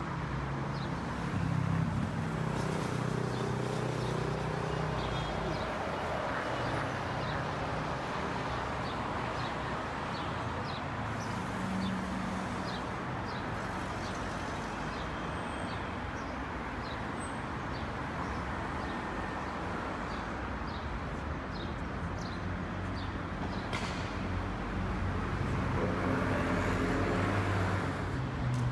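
City street ambience: steady traffic noise with an engine hum, growing a little louder near the end, and short high chirps repeating through it.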